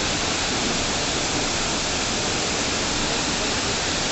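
Waterfall: a steady, loud rush of falling water, heard close up.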